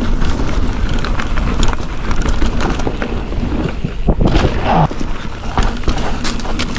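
Wind buffeting the microphone over the rumble of an Ibis Ripmo V2S mountain bike rolling down a dirt trail, with scattered clicks and knocks from the bike and tyres over the ground.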